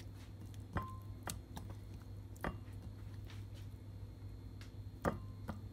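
Scattered clinks and taps of kitchen utensils, about five in all, two of them ringing briefly, over a steady low hum.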